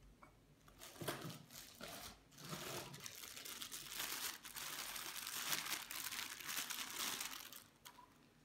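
Clear plastic bag crinkling and rustling as it is handled by hand and a small pasta die is unwrapped from it. The crinkling starts about a second in, grows heavier and steadier from about four seconds in, and stops shortly before the end.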